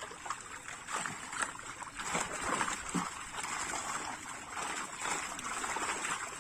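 Live fish crowded in a seine net thrashing and splashing in shallow water as they are handled, a busy, irregular patter of small splashes.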